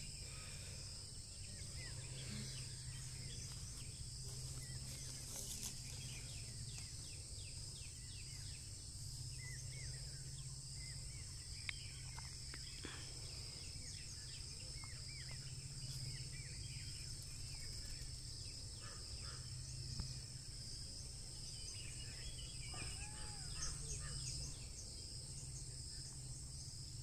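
Morning outdoor ambience: a steady high-pitched insect drone with scattered bird chirps and calls, over a faint steady low hum.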